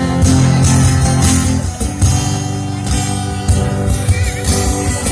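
Instrumental music led by guitar over a strong low bass line, with sharp accents recurring every second or so.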